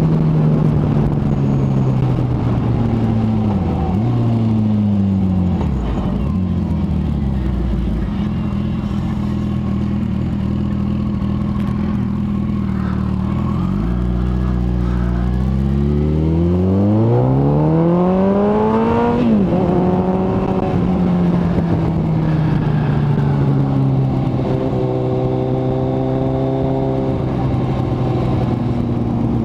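Kawasaki ZX-14R inline-four engine under way, running at a steady note. Its pitch dips and comes back twice in the first several seconds. Past halfway it revs up hard for about three seconds, drops sharply at a gear change, then settles back to a steady cruise.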